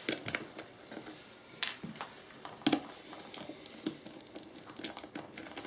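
Small screws and metal hardware clicking and tapping as they are unscrewed with a screwdriver and lifted off a box. The clicks are scattered and irregular; the sharpest comes about two and a half seconds in.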